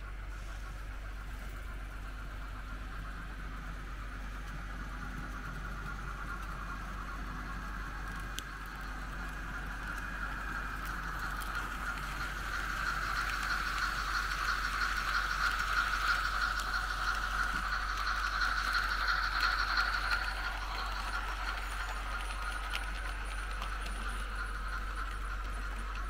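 Märklin H0 model trains running on the track: a steady motor whine with the rattle of wheels on the rails. The whine grows louder as a model steam locomotive passes close, then eases after about 20 seconds.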